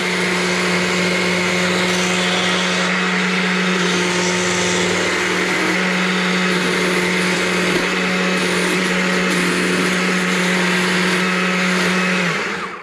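Stihl chainsaw running steadily at one pitch as it lightly strips the bark from a small log being carved into an owl, then winding down and stopping near the end.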